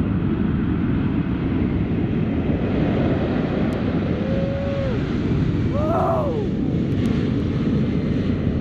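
Twin-engine jet airliner-type tanker, the Boeing KC-46A, on its takeoff roll: a steady, loud roar from its two Pratt & Whitney PW4062 turbofans at takeoff thrust as it accelerates down a wet runway.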